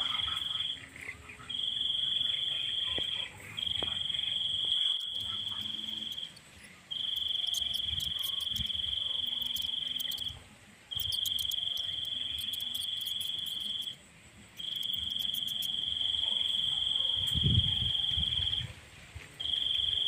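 An insect trilling on one steady high pitch in long bouts of one to four seconds, broken by short pauses. A faint, fast high ticking sounds above it in the middle, and a brief low rumble comes near the end.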